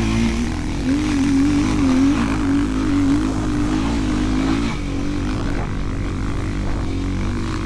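Enduro motorcycle engine running with a steady note whose pitch wavers slightly; the note weakens about five seconds in.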